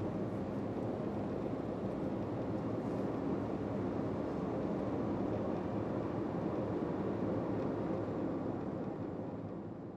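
Steady rushing noise with most of its weight in the low and middle range, fading out near the end.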